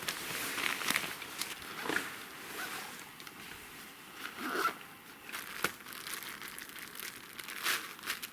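Irregular crinkling and rustling, broken by a few sharp clicks.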